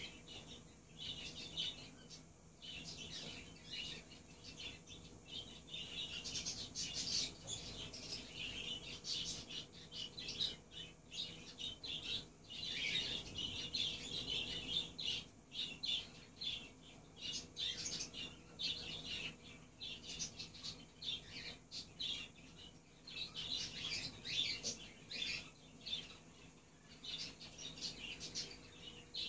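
A mating pair of Alexandrine parakeets chattering, with many rapid, soft, high chirps coming in bunches.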